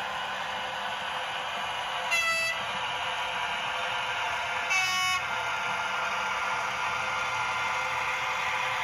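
PIKO sound-decoder model of a BR 247 Diesel Vectron sounding its horn twice through its built-in speaker: two short blasts of different pitch about two and a half seconds apart, over the locomotive model's steady running sound.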